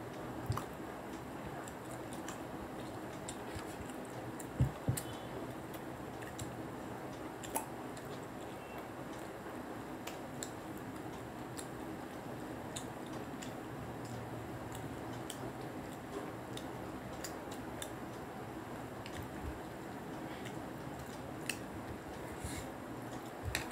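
Quiet eating sounds: chewing and fingers working food on plates, with scattered small clicks and taps, a couple of sharper knocks about four and a half seconds in, over a steady low background noise.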